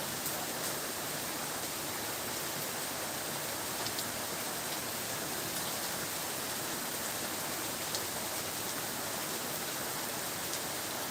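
Heavy, continuous rain: a steady, even hiss of falling rain, with a few sharp drip ticks, about three in all.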